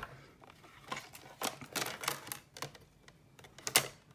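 Scattered light clicks and taps of a thin metal cutting die and cardstock being handled as the die-cut butterfly and its small cut-out pieces are pushed free. The loudest click comes near the end.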